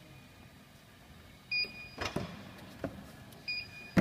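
Vending machine's electronic buzzer giving two short high beeps about two seconds apart, with a couple of sharp knocks between them.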